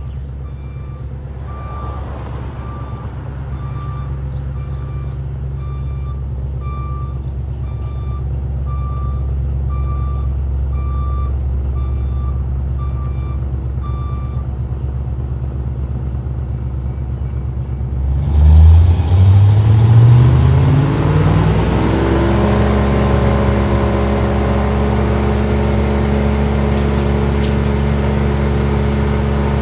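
A heavy vehicle's engine runs low while its reversing alarm beeps about once a second. The beeping stops about halfway through. About 18 seconds in, an engine revs up and settles into a steady high-speed run.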